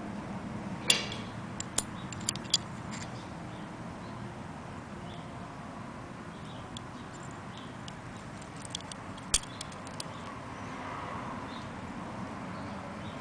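Small metal clicks and ticks as a pistol's recoil spring and guide rod are handled and fitted into a Kahr CM9 slide: a sharp click about a second in, a few quicker ones just after, and two more near the middle, over a steady low background noise.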